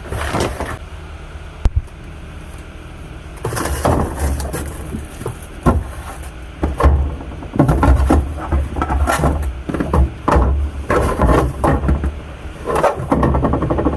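Groceries being packed into a refrigerator: packages rustling and repeated knocks and clunks as items are handled and set on the shelves, busiest from a few seconds in.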